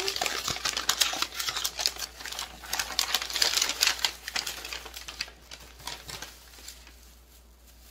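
Brown kraft wrapping paper being unrolled and handled: a dense crinkling crackle that thins out and grows quieter after about five seconds.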